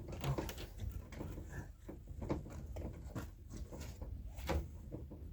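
Hand-cranked Vevor wire stripping machine being turned with its crank handle as a wire feeds through: a run of irregular clicks and light knocks from the mechanism, with one louder knock near the end. The wire is running off to the side of the blade, so it is barely cutting.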